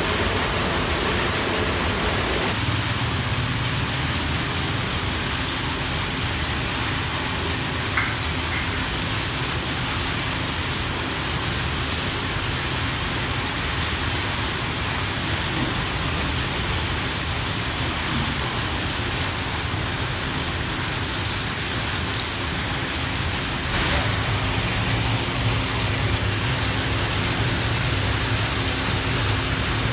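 Steady background rumble with a low hum, and a few light clicks in the second half.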